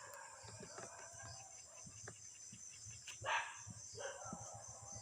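A dog barks twice, about three and four seconds in, over a steady high-pitched background drone like insects.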